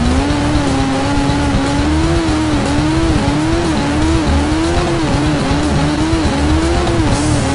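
Turbocharged Suzuki Hayabusa inline-four motorcycle engine held at high revs through its aftermarket GSX-R exhaust, the pitch wavering up and down about twice a second as the rear tyre spins in a smoky burnout. Near the end the revs drop away.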